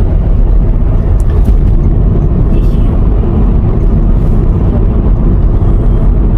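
Steady low rumble of a car's engine and tyres, heard from inside the cabin while it drives along.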